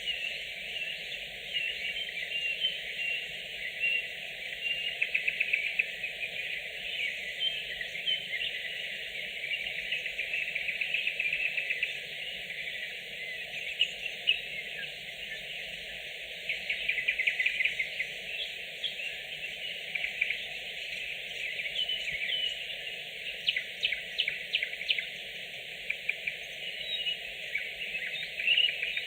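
Nightingale singing, a continuous song of fast trills, rapidly repeated notes and chirps.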